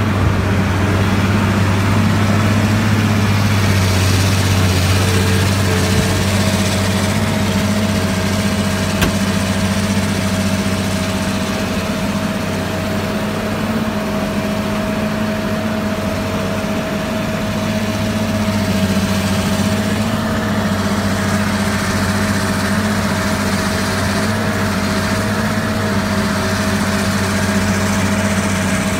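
Diesel engines of a Caterpillar tracked excavator and a Fendt 930 Vario tractor running close by: a deep, even hum with a thin steady whine above it.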